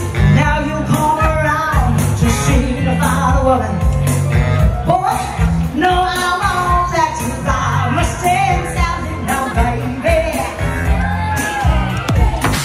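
A woman singing a rock-and-roll song live into a microphone over an amplified backing track with a steady bass beat.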